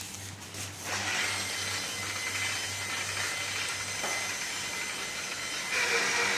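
Electric power tool motor running with a steady hiss, getting louder about a second in and stepping up again near the end with a steady whine.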